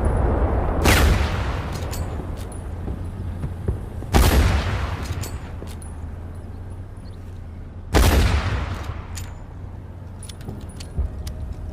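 Springfield rifle firing three shots roughly three and a half seconds apart, each with a long fading echo, with small sharp clicks between shots over a steady low rumble.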